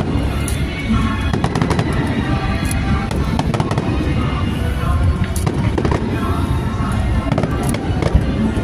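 Aerial fireworks bursting over and over: many sharp cracks and pops over a constant low rumble, with music playing under them.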